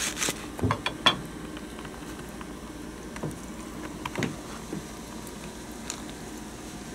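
Whole raw chickens handled on a plastic cutting board: a few light knocks in the first second or so, then scattered soft, wet pats and slaps as a bird is turned over and pressed down.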